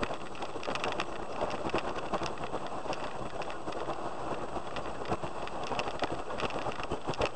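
Vehicle driving on a wet, muddy dirt road in rain, heard from inside the cab: a steady hiss of tyres and rain with many sharp ticks of drops and spray striking the body and windscreen.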